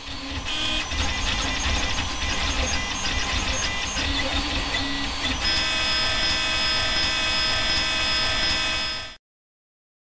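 FDM 3D printer running, its stepper motors whining in several steady tones that change as the moves change. The sound cuts off abruptly about nine seconds in.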